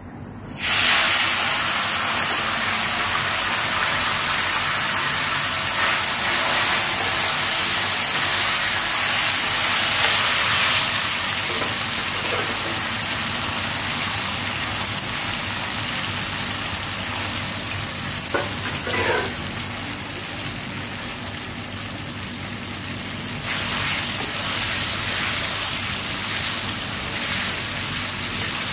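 Boiled spaghetti sizzling in hot garlic oil in a stainless steel frying pan. The sizzle starts suddenly about a second in and slowly dies down, then flares up again a few seconds before the end as more pasta goes in.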